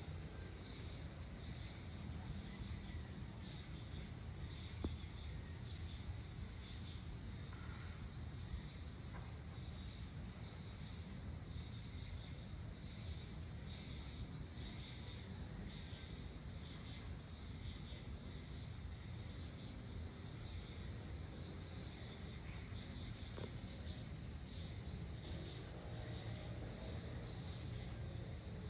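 Insects chirping at dusk, a steady high trill with rhythmic pulsing chirps below it, over a low steady rumble.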